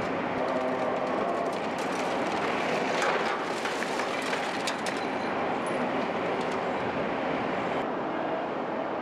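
Heavy recovery tow-truck diesel engines running steadily, with a few knocks and clanks about three seconds in as the overturned truck cab is pulled back onto its wheels.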